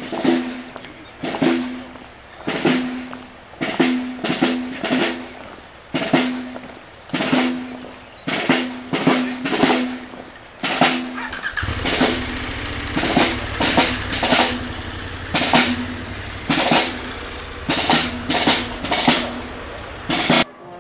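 Marching band's drum section beating a march cadence on snare drums, bass drum and cymbals, with no brass playing. A low steady rumble joins about halfway through.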